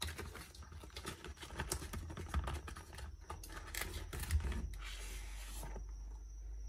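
Small cardboard product box being handled and its top flap pried open: a quick, irregular run of small clicks, taps and rustles that stops about six seconds in, with a low steady hum underneath in the last couple of seconds.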